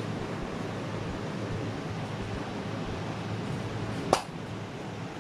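Steady background room noise, a low hum with an even hiss like a running fan, broken once about four seconds in by a single sharp click.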